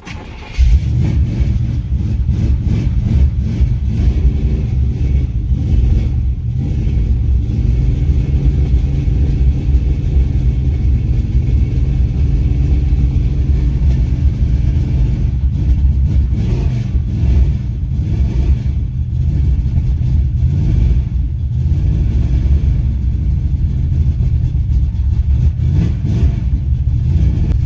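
1986 Chevrolet C10's 350 small-block V8, just fitted with new spark plugs, running steadily with some rises and falls in revs.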